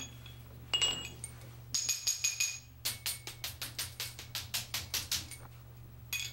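A metal tool tapping on a clutch hydraulic line: a few ringing taps, then a quick run of about a dozen light taps, about five a second. The tapping loosens trapped air bubbles while the clutch master and slave cylinder are bench-bled.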